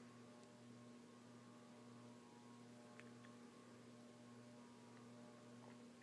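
Faint steady hum from the Alaska AC-4152 ceiling fan's large 210x20mm spinner motor running, with a few faint ticks.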